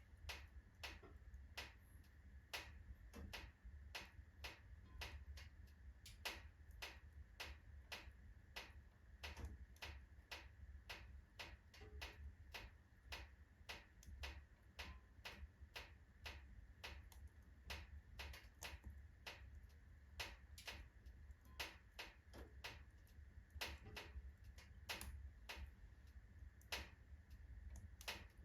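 Oak logs burning in a fireplace, giving off a faint, irregular crackle of small sharp pops, several a second.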